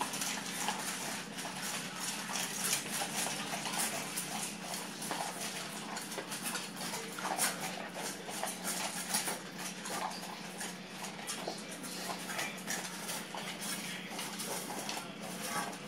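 Corgis eating from stainless steel bowls: chewing and licking with frequent small clinks and clicks of food and muzzles against the metal, over a steady low hum.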